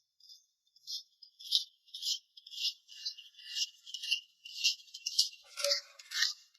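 Background music with a shaker beat: thin, high rattling strokes about two a second, with no bass.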